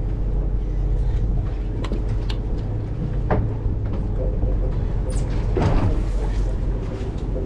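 Steady low machinery hum of a fishing boat, with a few light clicks and knocks.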